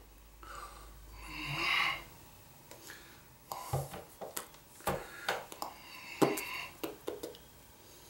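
A man making breathy sounds with his mouth instead of words: a long hissing breath about a second in, then a string of short snorts and mouth noises.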